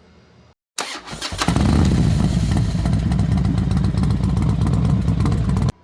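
An engine cranked and catching with a few sharp clicks, then running loud and steady with a rapid pulsing, cut off abruptly near the end.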